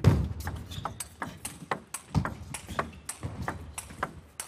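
Table tennis rally: the ball clicking off the rackets and the table in quick succession, about three hits a second. A low thud comes about two seconds in.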